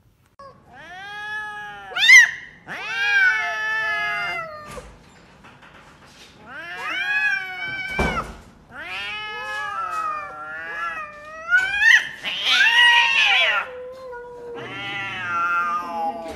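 Domestic cats yowling: about six long, drawn-out wailing calls in a row that rise and fall in pitch, with a short sharp thump about eight seconds in.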